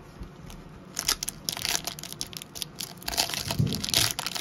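A foil trading-card pack wrapper being torn open, with dense crinkling and crackling starting about a second in and running on.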